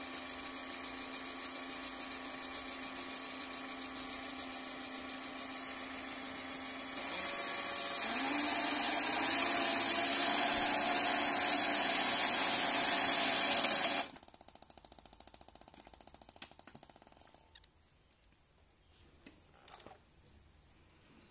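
Small electric motor whirring steadily under a LEGO Power Functions receiver, stepping up in pitch and loudness in two steps about seven and eight seconds in, then cutting off suddenly about two-thirds of the way through. Faint scattered clicks follow.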